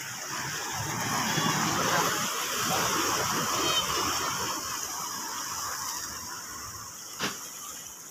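Sea waves washing and splashing against breakwater rocks, swelling through the middle and easing off, with a single short knock about seven seconds in.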